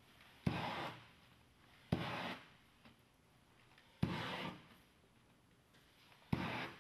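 Propane shrink-wrap heat gun (Shrinkfast heat tool) fired in four short whooshes about half a second each, each starting sharply and fading, while heat is worked into pleats of the shrink film.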